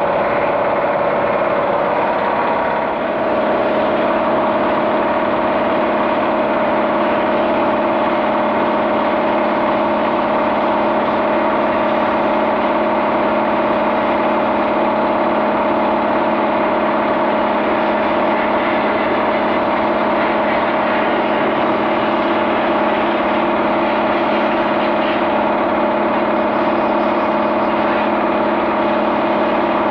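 A motor running steadily with a constant hum; its pitch shifts slightly and its loudness dips briefly about three seconds in, then holds steady.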